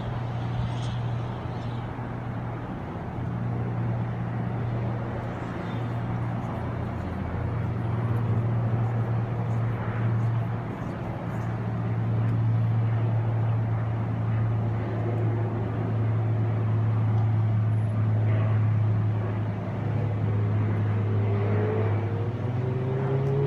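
A motor engine running steadily, a continuous low hum under a wash of outdoor noise. A faint rising tone comes in near the end.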